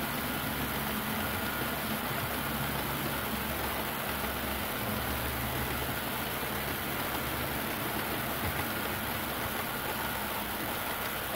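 HO scale model passenger train rolling past at speed: a steady rumble of metal wheels on the rails, with a low engine-like hum underneath.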